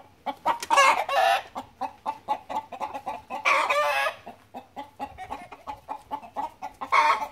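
Chickens clucking, with three loud wavering calls: about a second in, around three and a half seconds in, and at the very end.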